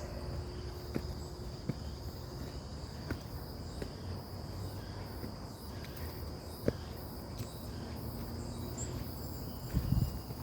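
Insects trilling in one steady, unbroken high-pitched drone, with a few faint clicks scattered through and a couple of low thumps near the end.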